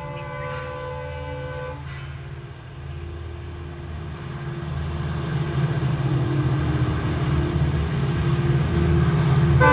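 Indian Railways diesel locomotive's air horn sounding one chord-like blast of about two seconds. Then the engine's low rumble grows steadily louder as the train approaches, and a second horn blast starts at the very end.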